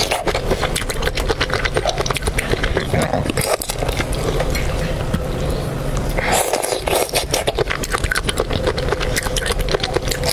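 Close-miked eating of raw chilli-marinated shrimp: wet chewing and sucking, and the shell crackling as a shrimp is peeled by hand, with a dense run of quick clicks throughout.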